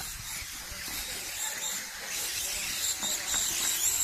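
Electric 1:10 radio-controlled rally cars driving on the course, a high motor whine with tyre noise that grows louder in the second half.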